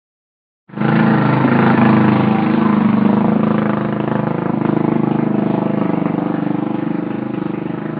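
A motor engine running steadily, cutting in suddenly less than a second in and easing off a little toward the end.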